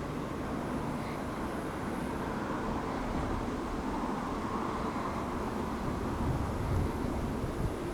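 Freight train rolling past: a steady rumble of wagon wheels on the rails, with a few low thumps near the end.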